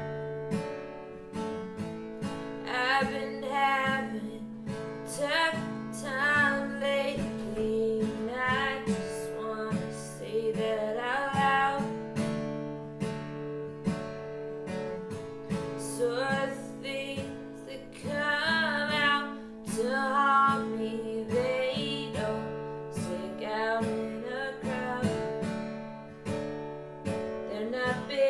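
Acoustic guitar strummed steadily, with a woman singing over it in phrases of a second or two.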